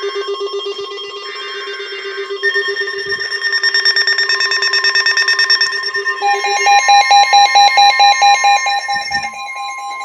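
NOAA weather alert radios sounding their severe-weather alarms together: several steady electronic tones, one of them rapidly pulsing. About six seconds in, a louder, faster-beeping alarm at higher pitches takes over, and the lower tone stops soon after.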